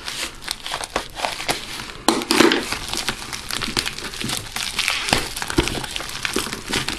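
Packaging crinkling and crackling as it is worked open by hand, with a dense run of small irregular clicks that is loudest about two seconds in.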